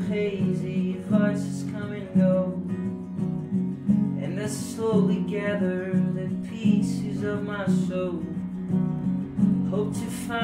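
Acoustic guitar strummed in a steady rhythm, with a banjo picking along, in an instrumental stretch of a folk song.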